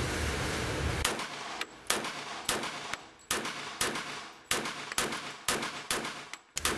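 A Heckler & Koch .45 ACP pistol fired in a steady string of about a dozen shots, roughly two a second, starting about a second in. Each shot rings off the walls of the indoor range lane. A steady low rumble fills the first second before the first shot.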